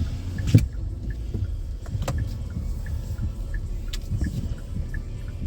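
Car running, a steady low rumble, with a sharp click about half a second in.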